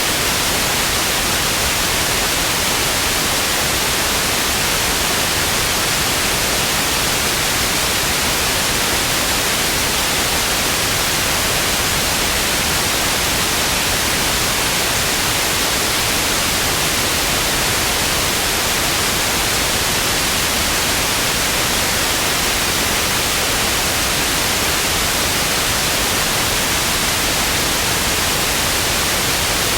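Television static: a steady, loud white-noise hiss with no breaks or changes, brightest in the high range.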